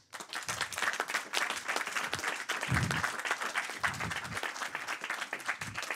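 A small seated audience applauding, many hands clapping in a dense patter that thins out near the end.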